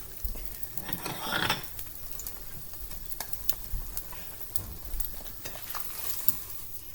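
Egg frying in butter in a pan, crackling and popping as it sizzles just after the stove is turned off. A louder noise of about half a second comes about a second in.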